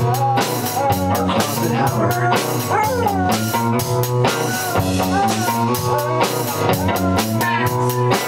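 Basset-terrier mix dog howling along to a rock band playing drum kit and guitar, its howls gliding up and down in pitch over the steady drumming.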